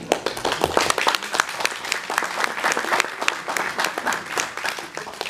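Audience applauding, a dense patter of many hands clapping that eases slightly near the end.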